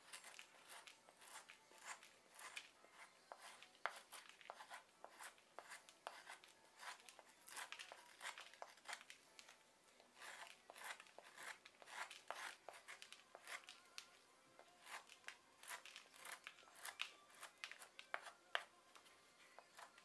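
Carving knife whittling the end of a short bark-covered branch, shaving off bark and wood chips in short, irregular cutting strokes, a couple or more each second.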